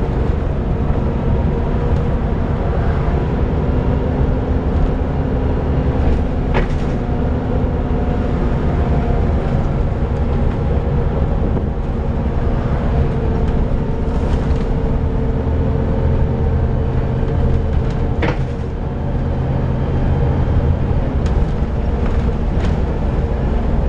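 Volvo B7TL double-decker bus running on the move, heard from on board: a steady low engine drone with whining tones over it. There are two sharp clicks, about a quarter of the way in and again about three quarters of the way through.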